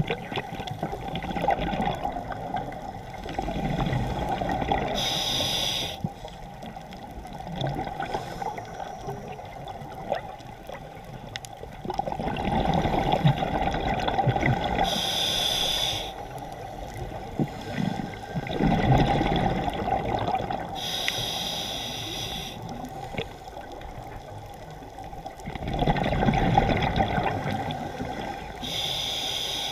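Scuba diver breathing through a regulator underwater. Short hissing inhales come several times, each followed by a longer, louder rush of exhaled bubbles.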